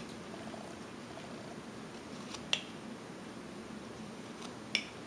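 Carving knife whittling basswood: two sharp clicks of the blade cutting through the wood, about two seconds apart, over a faint low steady hum.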